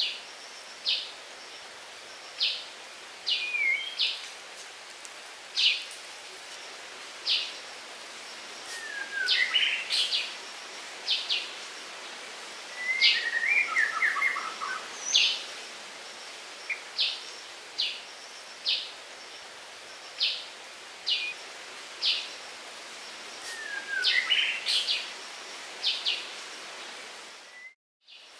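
Forest birds calling over a steady background hiss. One bird repeats a short, high note about every second or so, and falling chirped phrases come in now and then. The sound cuts out briefly just before the end.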